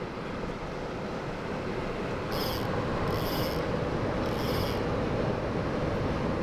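Steady rushing of flowing river water, with three short, high-pitched buzzy sounds in the middle.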